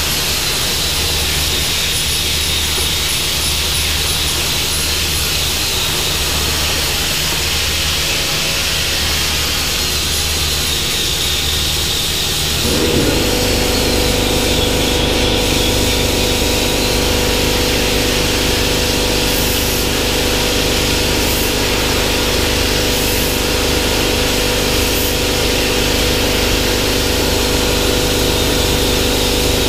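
Hypertherm Powermax65 plasma cutter on a CNC table cutting sheet steel: a continuous loud hiss of the plasma torch and its cutting air. About 13 seconds in, a steady low mechanical hum joins and the whole sound gets slightly louder.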